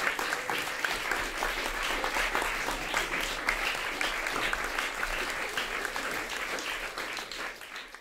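Audience applauding, a dense steady clapping that fades out near the end.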